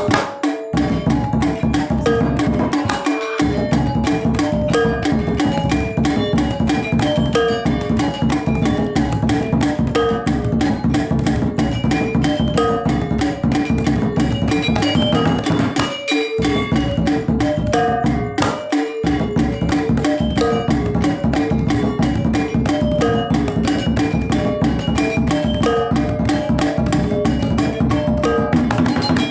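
Balinese gamelan music for topeng dance: fast, interlocking metallophone notes over hand drums and small cymbals. The lower instruments drop out briefly a few times.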